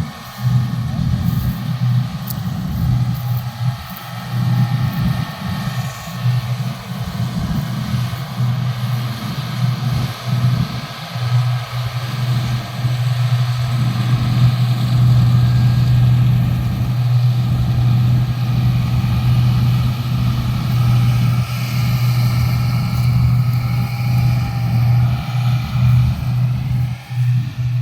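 Heavy farm machinery engine running steadily: a continuous low engine hum over a broad mechanical rush, as harvesting machinery works the wheat.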